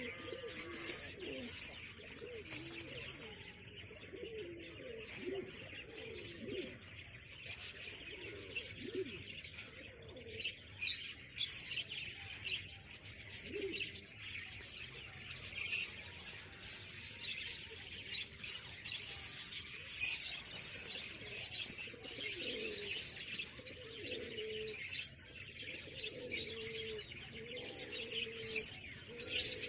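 Fancy pigeons cooing in repeated low coos, more often in the last third, while small birds chirp steadily throughout.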